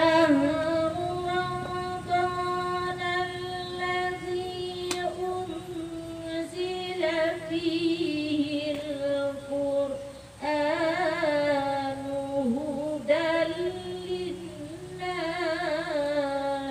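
A woman chanting Quran verses in Arabic in the melodic tilawah style, amplified through a microphone: long held notes alternating with wavering, ornamented runs, with short breaks for breath between phrases.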